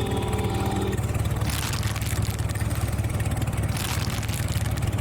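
A small engine running steadily at a fast, even idle-like pulse, with two brief hisses about one and a half and four seconds in.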